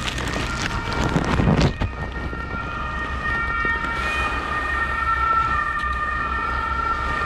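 Emergency doctor's vehicle siren (Notarzt) sounding steadily from about two seconds in, slowly getting louder. A brief loud rustle comes about a second in.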